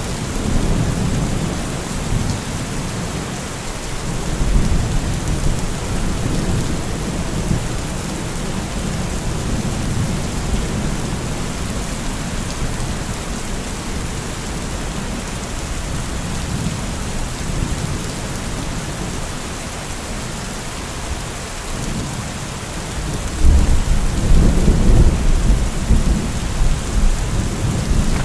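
Steady heavy rain with rolling thunder rumbling underneath, the thunder swelling louder about two-thirds of the way through and rumbling on to the end.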